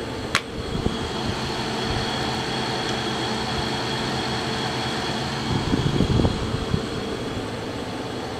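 Window air conditioner's sealed fan motor running on high: a steady hum and whoosh of air with a faint high whine. A sharp click comes about half a second in, and a brief low rumble around six seconds in.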